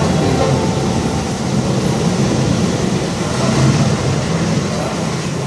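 Thunderbird limited express electric train pulling out of the station, its motors and wheels running as a steady rumble that eases slightly as it draws away.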